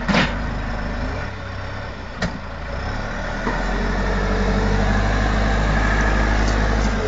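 Backhoe loader's diesel engine running steadily, then growing louder about three and a half seconds in. A sharp knock comes just after the start, and a shorter one about two seconds in.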